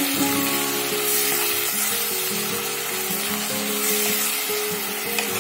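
Chopped onion and freshly added onion paste sizzling in hot oil in a kadai, stirred with a wooden spatula: the raw paste is being sautéed into the fried onion. Soft background music with held notes plays underneath.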